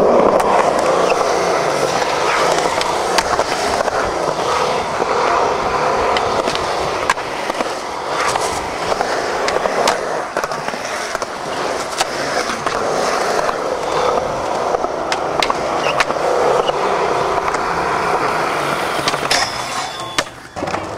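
Skateboard wheels rolling on concrete ramps, with sharp clacks of boards popping and landing scattered throughout.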